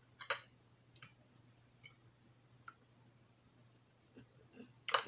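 A few short, sharp clicks against a low steady hum: one about a third of a second in, a fainter one at about a second, and a louder one near the end.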